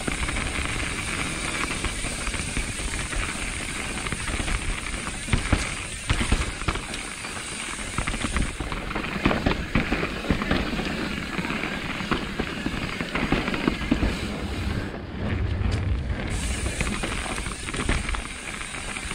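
Mountain bike rolling down a dirt trail: tyre noise and wind on the microphone, with frequent knocks and rattles from the bike going over bumps.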